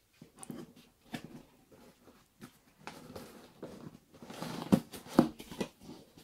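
A cardboard box being opened by hand: scattered knocks and clicks with rustling of the flaps and packing, loudest about four to five seconds in.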